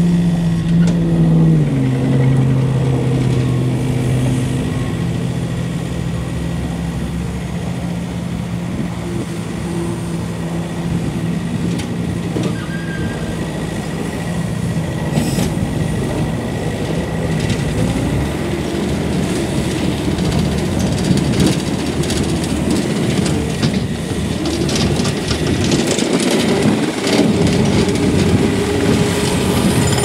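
Diesel engine of a 2009 Takeuchi TL120 compact track loader running as the machine drives on its tracks over dirt. Its pitch drops about one and a half seconds in, and the sound gets rougher and louder, with clattering from the tracks and undercarriage, in the second half.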